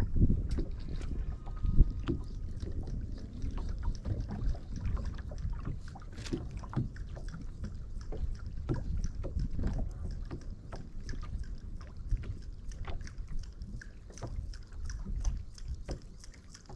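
Water lapping against a bass boat's hull with wind on the microphone, and many small irregular ticks and knocks.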